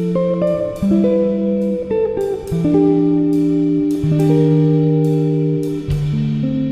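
Instrumental background music: slow held chords that change every second or so, each new chord starting with a plucked attack.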